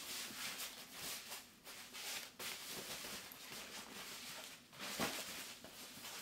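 Packing material rustling and scraping as a wrapped part is unwrapped by hand, in irregular strokes, with a sharper scrape about five seconds in.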